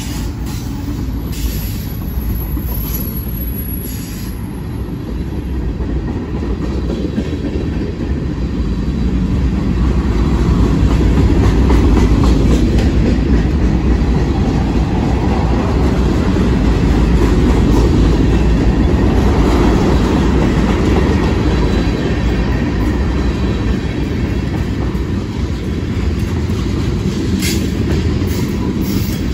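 Freight train rolling past close by: the mid-train distributed-power diesel locomotive goes by first, then tank cars and covered hoppers, their steel wheels clicking over the rail joints above a steady low rumble that swells in the middle.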